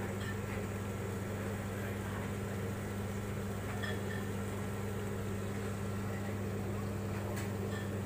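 A steady low machine hum that holds the same pitch and level throughout, with a couple of faint clicks.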